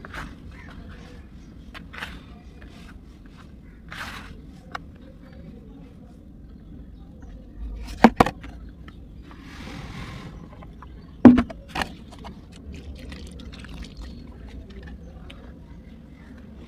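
Hands crumbling and crushing dry red clay lumps in a plastic tub: soft crunches every couple of seconds, with two sharp, loud cracks about eight and eleven seconds in.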